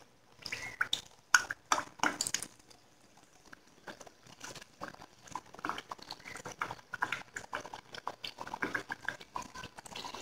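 A lentil fritter (paripu vada) deep-frying in hot oil, sizzling with irregular crackles and pops. The pops are sparse at first and come thicker from about four seconds in, as the batter sets in the oil.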